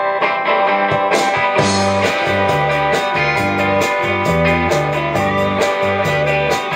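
Live rock band playing: electric guitars over a stepping bass line and drums, with keyboard. Cymbal strokes come in about a second in and keep a steady beat.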